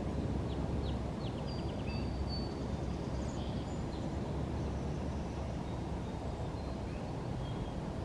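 Steady low outdoor background rumble, with small birds calling faintly over it: short whistled notes and a quick run of clicks about a second in, then scattered chirps.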